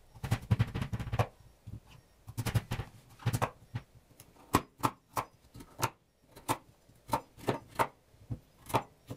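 Kitchen knife cutting the skin off pumpkin pieces on a wooden cutting board: a string of irregular knocks as the blade strikes the board.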